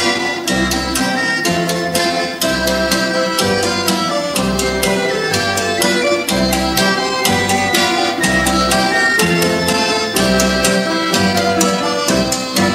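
Lively folk dance music with a steady beat and bowed-string melody, playing as the accompaniment to a stage folk dance.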